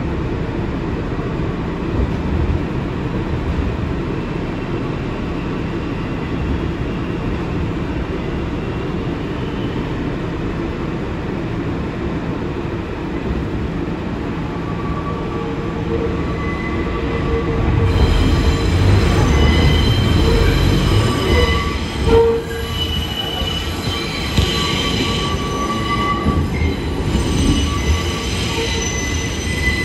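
R62 subway car rolling through the station with a steady low rumble. About halfway through, the steel wheels start squealing in several high tones as the train takes the tight curve of the City Hall Loop, and the running gets louder, with one sharp clunk a few seconds later.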